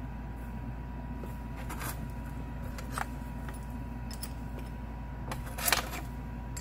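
Small metal clinks and rattles of pipe fittings and a wrench, a few light ones and then a louder cluster near the end, as a Teflon-taped fitting is handled and threaded into the compressor's drain port. A steady low hum runs underneath.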